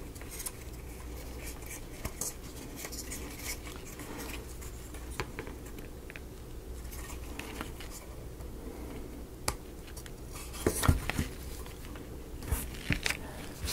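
Light clicks, taps and scrapes of small wooden model-kit pieces being handled and pressed into place, with a quicker run of louder clicks about eleven seconds in and again near the end. A faint steady hum lies underneath.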